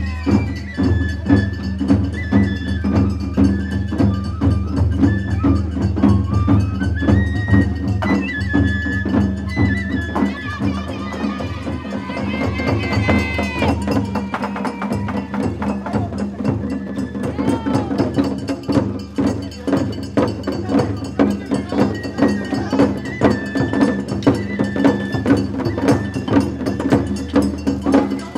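Japanese festival ohayashi music played on a dashi float: a high bamboo flute melody over quick, steady drum beats and percussion.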